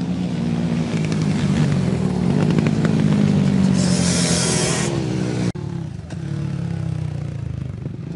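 Several racing quad ATVs' engines revving and pulling hard as they pass, loudest from about one to five seconds in, with a brief hiss around four seconds. The sound breaks off sharply about five and a half seconds in, then the engines go on a little quieter.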